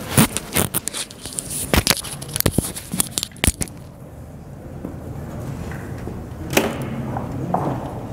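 A quick run of sharp clicks and crackles for about three and a half seconds, then a low steady hum with two soft knocks near the end.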